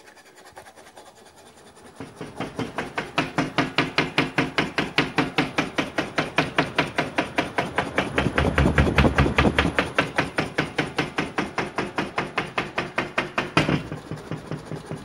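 Wall panel and fittings around a rotary subwoofer driven by a 5 Hz sine wave, knocking and rattling about five times a second in step with the woofer's stroke. The rattling starts about two seconds in, is loudest in the middle, and eases after a sharper knock near the end.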